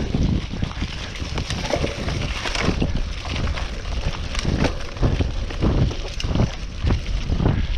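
Cyclocross bike riding fast over a bumpy trail covered in fallen leaves, with wind buffeting the microphone as a constant low rumble and frequent short knocks and crackles as the tyres and frame jolt over the ground.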